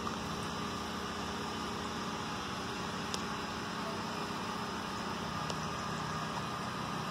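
Steady hum and hiss of an engine running at a distance, with two faint ticks partway through.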